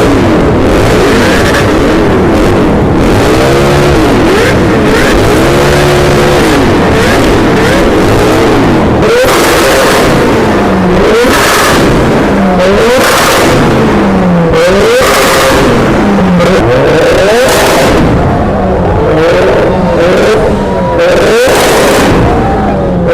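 Performance car and motorcycle engines revving loudly, several at once. The pitch rises and falls in swells, then from about nine seconds in climbs and drops back again and again, like a vehicle accelerating through its gears.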